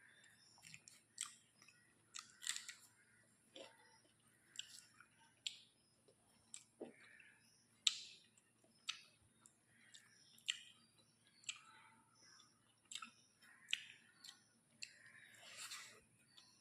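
Close-miked eating sounds: a person chewing food with moist mouth clicks and lip smacks, about one sharp smack a second and soft chewing between them.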